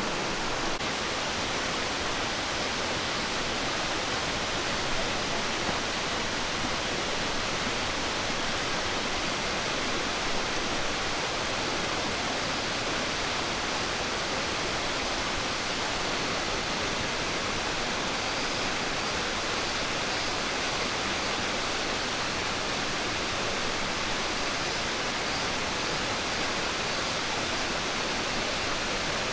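Steady, even rush of falling water, like a waterfall in a gorge, unchanging throughout.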